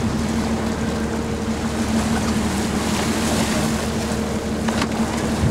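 Sportfishing boat's engine running with a steady low hum, under the splashing of a hooked blue marlin thrashing at the side of the boat. A short knock sounds near the end.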